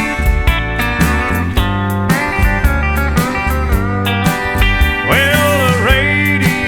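Country music with steel guitar over a steady beat, a singing voice starting near the end.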